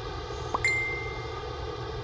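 A single bright ding about half a second in: a quick upward sweep, then a clear ringing tone that fades within about half a second. It sits over a steady background noise.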